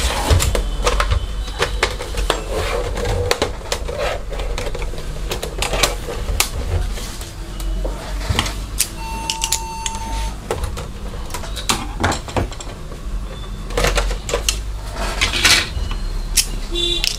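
Hands and a screwdriver working on an InFocus DLP projector's plastic housing: a string of clicks, taps and rattles of plastic panels and small screws as the case is turned over and the lamp cover is opened, over a steady low hum. A single steady beep sounds about nine seconds in, lasting just over a second.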